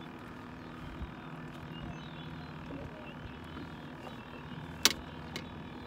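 Boat motor running with a steady low hum; a single sharp click sounds near the end.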